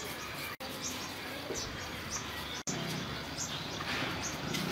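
Small birds chirping, short high falling chirps about two a second, over outdoor background noise. A low rumble comes in about halfway through, and the sound cuts out for an instant twice.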